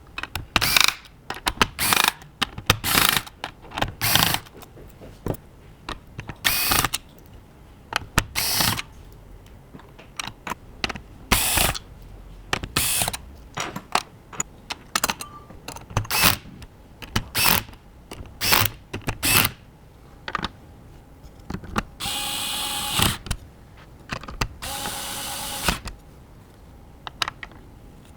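Computer parts being handled and fitted during a PC build: a string of separate clicks, snaps and knocks of plastic and metal hardware, with two longer rasping bursts of about a second each near the end.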